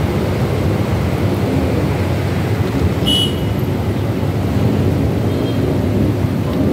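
Steady low rumble of road traffic passing on the street below, with a brief high squeak about three seconds in.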